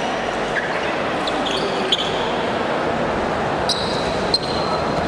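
Steady crowd hubbub filling a basketball arena, with a few short high squeaks of sneakers on the hardwood court.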